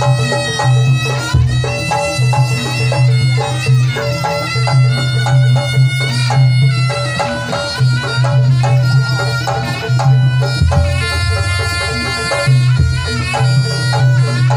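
Javanese jaranan ensemble music: a shrill, reedy shawm (slompret) melody with sliding pitches over a steady low bass, punctuated by rapid drum strokes, accompanying a barongan dance.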